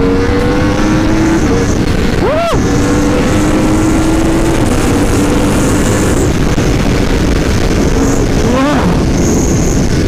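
2018 Yamaha R1's inline-four engine pulling hard under acceleration while being ridden. Its pitch climbs slowly for several seconds and drops back at a gear change near the middle, with a brief sharp rise and fall about two and a half seconds in and another sweep near the end.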